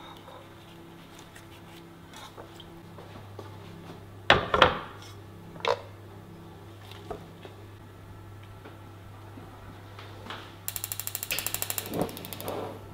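Steamer pot and lid set down with a few hard knocks, then near the end a gas hob's igniter clicking rapidly for about two seconds as the burner is lit for steaming.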